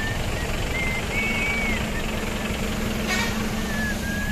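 Motorcycle engine idling steadily in a queue of road traffic, with thin high whistled notes coming and going over it and a brief click about three seconds in.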